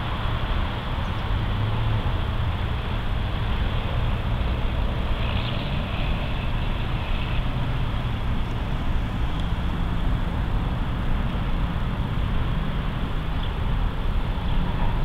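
Diesel locomotives of a Norfolk Southern mixed freight approaching slowly, their engines running with a steady low rumble.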